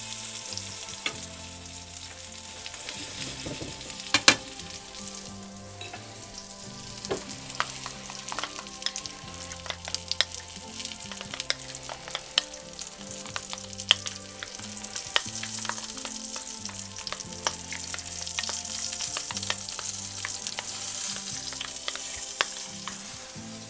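Fish fingers sizzling in a frying pan, with a spoon clicking and scraping against a bowl as salad cream and sandwich spread are stirred into a rough tartar sauce. One sharp clink about four seconds in is the loudest sound.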